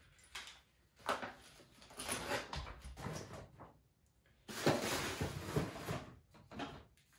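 Camera accessories and their packaging being handled by hand: a knock about a second in, then spells of rustling, the loudest a little past halfway.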